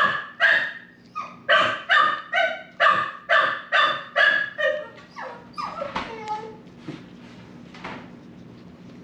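Puppy barking over and over, about two barks a second, then a few weaker yips and whines that drop in pitch before it falls quiet.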